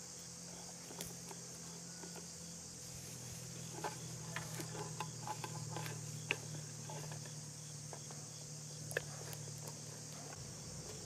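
Steady high-pitched insect chorus, with scattered sharp clicks and knocks that are loudest about six and nine seconds in.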